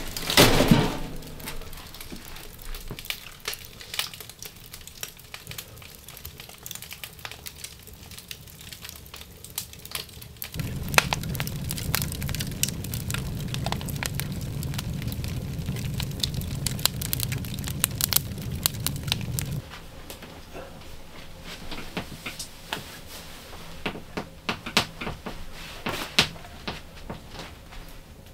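Wood fire in a small steel wood stove, crackling and popping with scattered sharp snaps. There is a knock right at the start as a log is pushed in. A low steady rumble runs for about nine seconds in the middle.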